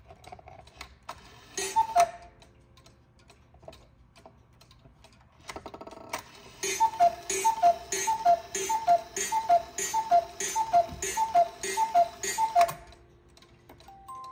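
Black Forest cuckoo clock's cuckoo calling the hour: one two-note high-low call about two seconds in, then after a brief whirr of the mechanism a run of about a dozen calls, roughly two a second, each with a puff from the bellows and faint ticking between.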